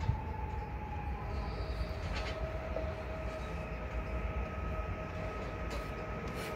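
PESA Elf EN76 electric multiple unit approaching along the platform, running with a low rumble and a steady whine from its traction drive that sets in about a second in.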